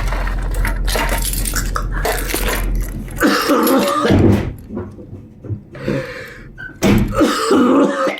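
Steady low rumble of a truck on the move, heard from inside its closed cargo box. The rumble drops away about three seconds in and gives way to irregular clattering and knocks.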